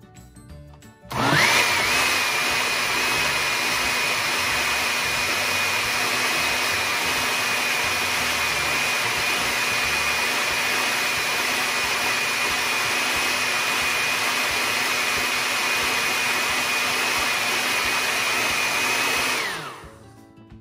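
Countertop blender running at speed, pureeing a smoothie of frozen mango, blackberries and milk; the motor spins up quickly about a second in, holds one steady high whine for about eighteen seconds, and winds down with a falling pitch near the end.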